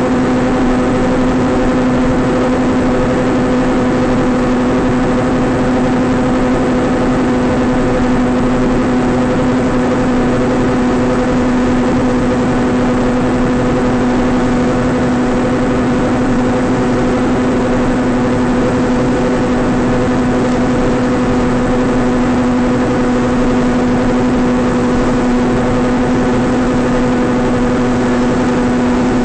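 Electric motor of a small FPV flying wing running at steady cruise throttle: an even buzz that holds one pitch throughout, with rushing noise beneath it.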